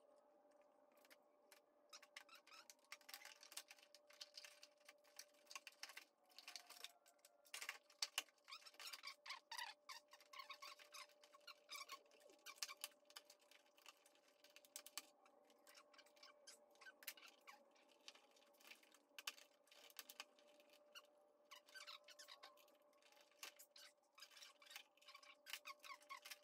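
Faint, quick, irregular clicking and rattling of a ratchet and plastic air-intake parts being fitted in the engine bay, sped up in a time lapse, over a faint steady hum.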